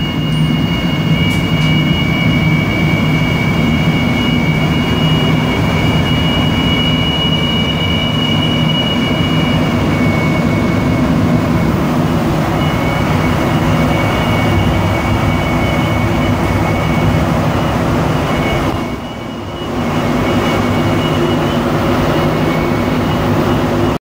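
Rubber-tyred MPM-10 metro car running as it pulls out of a station: a steady high-pitched whine of two tones over the train's running rumble, the weird, annoying sound these cars make on start-up. The level drops briefly about nineteen seconds in.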